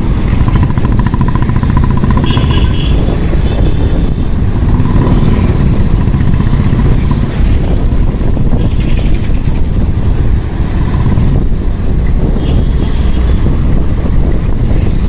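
Motorcycle riding along a road: steady engine noise under heavy wind buffeting on a phone microphone with no windshield or external mic.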